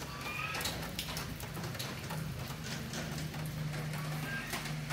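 Steady rain falling, a haze of faint drops with a steady low hum beneath it.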